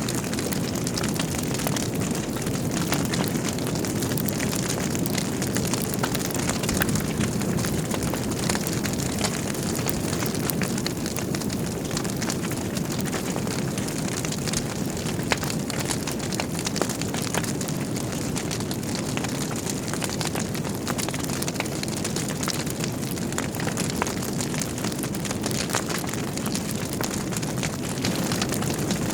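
Wood fire of burning logs in a fireplace: a steady low rush of flames with frequent small crackles and pops, one sharper pop about halfway through.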